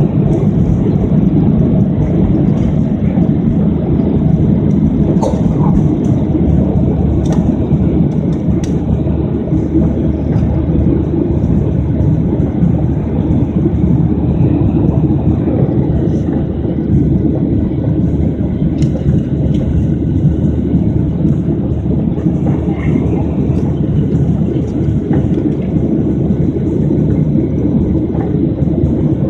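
Boeing 737 jet engines at takeoff thrust, heard inside the cabin as a loud, steady low rumble and roar through liftoff and the initial climb. A few short knocks come in the first nine seconds.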